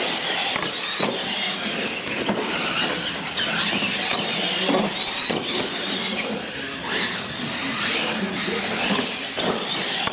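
Electric radio-controlled monster trucks racing, their motors and gears whining up and down in pitch, with several knocks as the trucks hit and land off the jumps.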